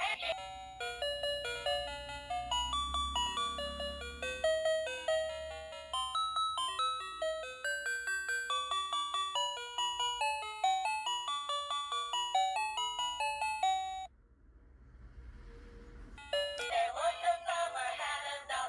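Electronic music: a melody of single chime-like beeping notes, like a doorbell tune. It breaks off about 14 seconds in, leaving a faint noise for a couple of seconds, and then a synthetic singing voice starts near the end.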